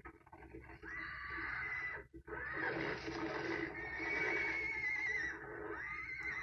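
Horses neighing and squealing while fighting, a run of about four long, high, wavering calls one after another, from a film soundtrack heard through a television speaker.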